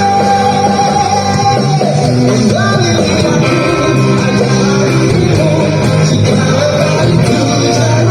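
Rock song with a sung vocal over a steady band. The singer holds one long note for about the first two seconds, then carries on with the moving melody.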